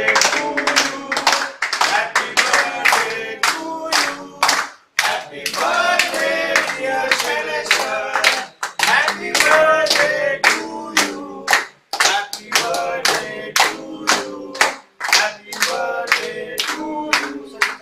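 A group of men singing a birthday song together while clapping in a steady rhythm, with short breaks between sung lines.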